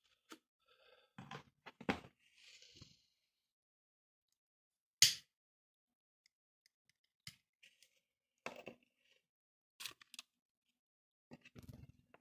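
Small handling noises of a disposable lighter and cigarette: scattered soft clicks and rustles, with one sharp click about five seconds in.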